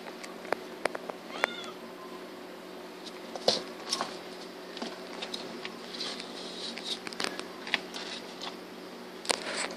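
Semi-flat Persian kittens at play: a short high meow about one and a half seconds in, with fainter calls later, over scattered sharp clicks and taps as they scramble about a wire cage.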